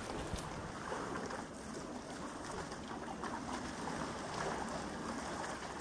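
Steady wind and water noise at the harbour's edge: a rushing haze with a choppy low rumble of wind on the microphone, and no distinct events.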